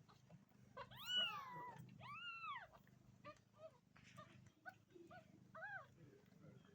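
Domestic cat meowing: two long, arching meows about a second in, followed by a run of short, fainter mews.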